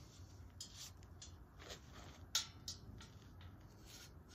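A few faint clicks and light knocks as the steel tube frame of a climbing tree stand is handled and fitted together, with the sharpest click about halfway through.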